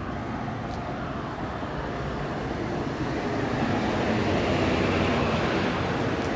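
Steady vehicle rumble, a running engine with road or air noise, growing somewhat louder about halfway through.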